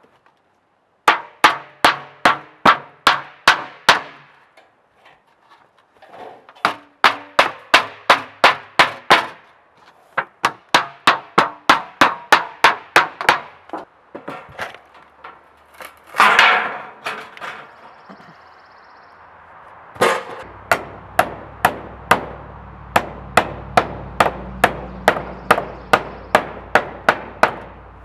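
Hammer driving nails in several runs of quick, even blows, about three a second, each strike with a short metallic ring. There are short pauses between runs and a brief rasping noise about sixteen seconds in.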